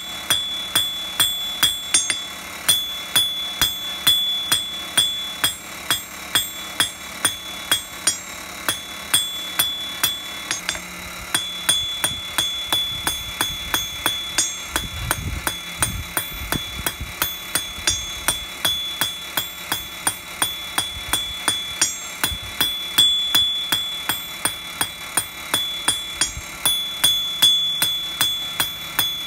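Blacksmith's hammer striking a thin metal rod on an anvil in a steady rhythm, about two to three blows a second. Each blow leaves the anvil ringing with a high tone.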